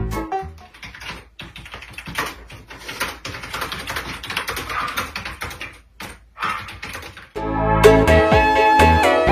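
Rapid, irregular clicking and tapping over a faint hiss, then loud music begins about seven seconds in.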